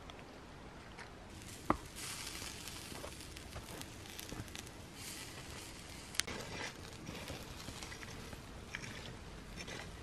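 Hot embers crackling and hissing under food roasting over them, with scattered small crackles and a few sharp pops, the loudest about six seconds in. The first two seconds are quieter, before the crackling sets in.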